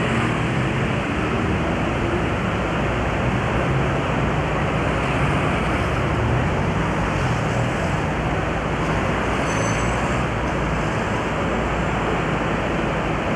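Steady city street traffic noise, an even, unbroken wash of road sound.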